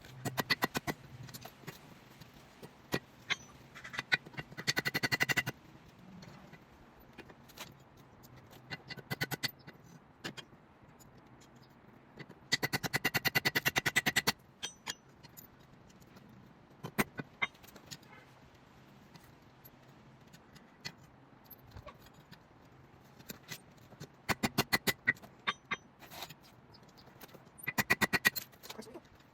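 Hammer striking a hot steel bolt on an anvil while forging it into an arrowhead: quick runs of rapid, ringing metal blows, with single strikes in between.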